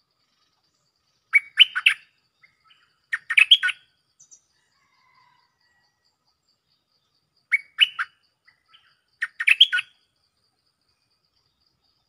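Stripe-throated bulbul singing: four short phrases of quick notes, in two pairs, with a pause of several seconds between the pairs.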